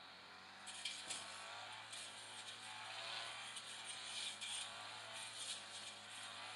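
Engine brush cutter running steadily, heard from afar. From about a second in, a rough, uneven hiss rides on top as the blade cuts through grass.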